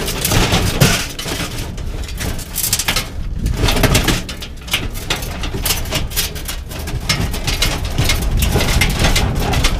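Metal clanking and rattling as the folding steel frame of a wheeled grill cart is handled and pulled out of a truck bed: many quick, irregular knocks and rattles over a steady low rumble.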